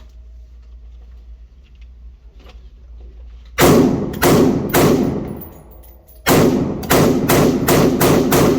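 Semi-automatic gunfire from an AR-15 with no stock fitted: three shots about half a second apart, then, after a short pause, a quick string of about seven shots at roughly three a second.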